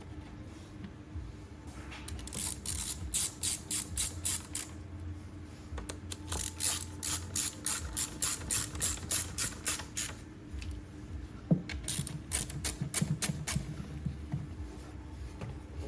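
Ratchet wrench clicking in two quick runs of about five clicks a second, then a few more clicks near the end, as the ignition coil or spark plug fasteners are worked.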